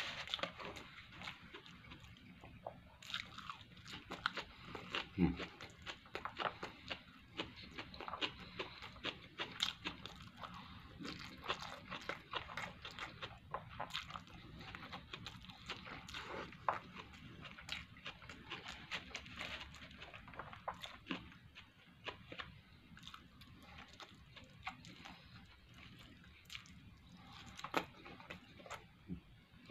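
A person chewing food close to the microphone: wet mouth sounds broken by many small, irregular clicks.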